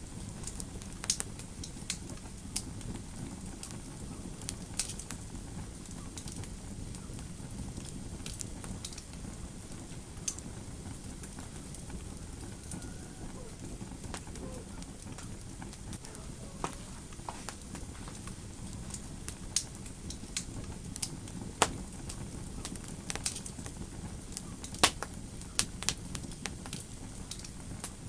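Wood fire crackling in a fireplace: irregular sharp pops and snaps over a steady low rumble of burning, with the loudest pops in the last third.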